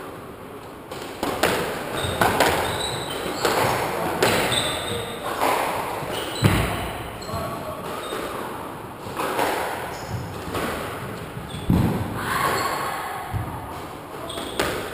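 Squash rally: the ball is struck by rackets and smacks off the court walls about once a second, each hit ringing in the enclosed court, with two heavier thuds along the way. Short high squeaks of shoes on the wooden floor come in between the hits.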